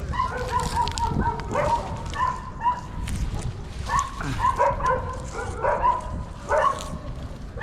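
A dog whining and yipping in many short, high calls that come in clusters.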